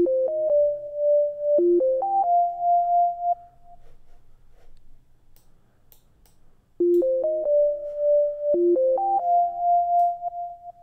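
Sine-wave synthesizer lead, lightly chorused, playing a short melody twice. Each time a quick run of notes climbs to a long held high note, with a pause of about three seconds between the two phrases.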